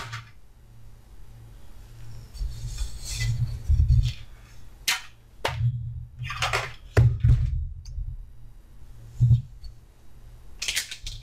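Empty steel PC tower case being handled on a table: a string of knocks, clunks and deep thuds as it is tipped and turned, with scraping and rustling in between.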